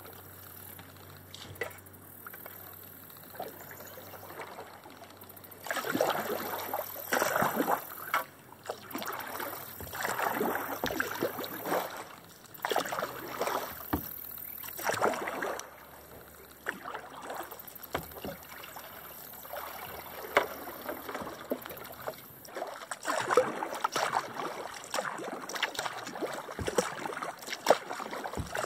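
Kayak paddle strokes in still swamp water: the blade dipping, pulling and dripping in uneven splashy surges a second or two apart, easing off for a few seconds past the middle, with a few sharp knocks.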